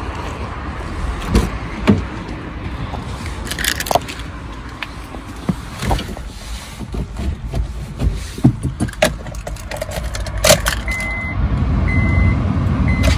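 Getting into a Honda Civic Type R EP3 to try to start it: knocks and sharp clicks from the door and cabin, with keys jangling. Near the end the car gives three short high beeps about a second apart. It does not start, because its battery is flat.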